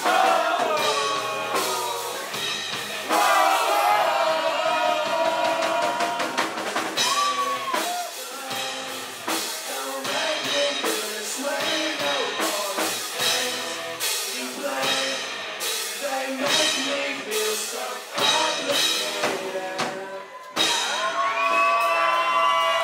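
Live rock band playing, with electric guitars, a drum kit and a male lead singer.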